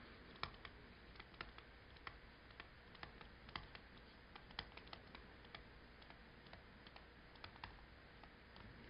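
Faint, irregular clicks of a stylus tapping on a tablet screen while handwriting, about two a second, over near-silent room tone.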